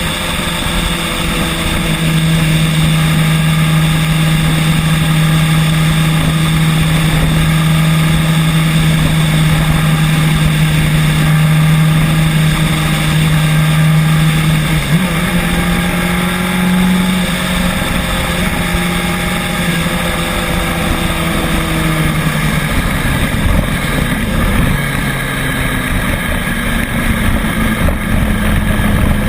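Electric kick scooter riding along: a steady motor hum whose pitch steps up about halfway through and then fades, over a continuous rumble of road and wind noise.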